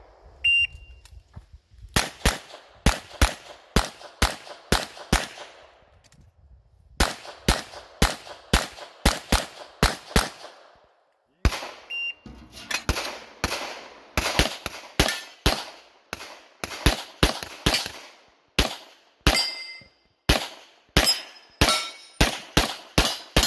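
A shot-timer beep, then strings of rapid handgun shots a fraction of a second apart, broken by short pauses. A second beep about 12 seconds in starts another run of rapid pistol fire through an IPSC stage.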